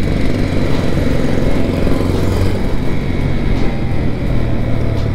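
Wind buffeting a helmet-mounted microphone at road speed, over the steady running of a TVS Apache RTR 200 4V's single-cylinder engine.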